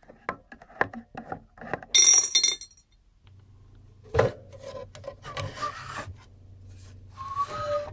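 Screwdriver clicking on the screws of a Sennheiser EM 2003 receiver's rear panel, with a brief loud rattle about two seconds in. Then the top cover of its extruded aluminium enclosure scrapes as it slides open, with a squeak near the end.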